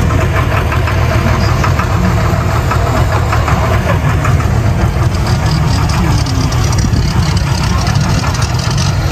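Turbocharged diesel engine of a John Deere 4020 Pro Stock pulling tractor idling loudly and steadily.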